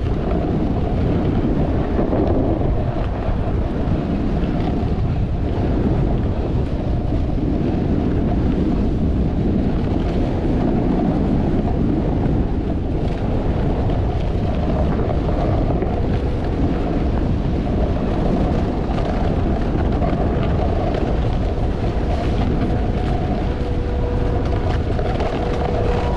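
Wind rushing over the camera microphone while riding a snowboard down a groomed run, mixed with the board sliding over packed snow. A steady hum comes in near the end.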